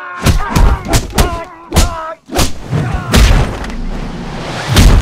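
Martial-arts fight sound effects: a rapid run of punch and kick hits in the first two and a half seconds, with strained vocal cries between them, then a building whoosh that ends in one heavy hit near the end.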